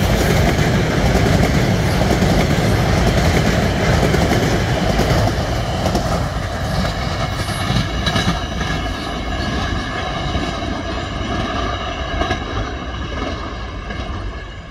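Empty freight wagons of a train rolling past on the rails, wheels clattering, the sound fading steadily as the end of the train moves away. From about halfway a thin steady wheel squeal comes in as the wagons take the curve.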